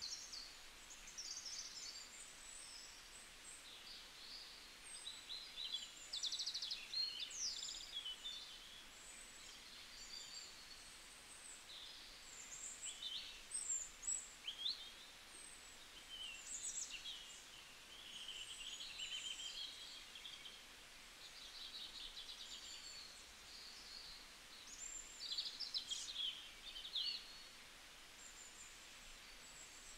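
Small birds chirping and trilling, many short high calls scattered throughout over a faint background hiss.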